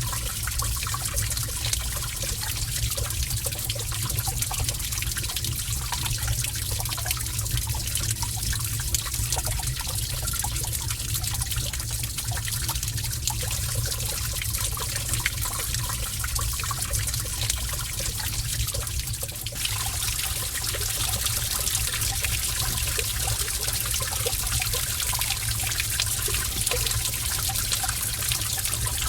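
Gentle running water trickling steadily in a cave, over a low rumble, with small drips and splashes scattered through it. The texture shifts slightly about two-thirds of the way through.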